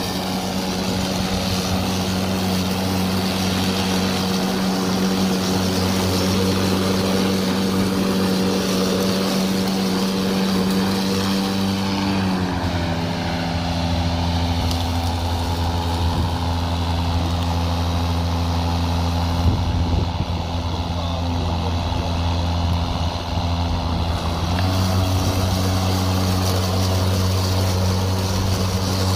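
DeWalt 20V brushless self-propelled cordless lawn mower running: a steady electric whir and hum from its motor and spinning blade. The hum drops slightly in pitch about twelve seconds in and comes back up a little after the twenty-five-second mark, with a few brief knocks around twenty seconds.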